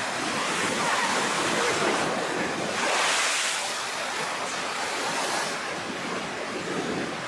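Rough sea ahead of a typhoon: surf breaking and washing in steadily, swelling louder about three seconds in.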